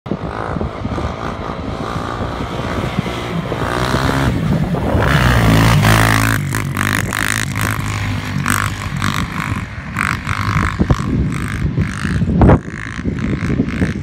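Off-road engines, a dirt bike or ATV, running and revving, with the pitch climbing as it accelerates about halfway through. The sound then changes to a pulsing engine note with wind on the microphone. There is one sharp knock near the end.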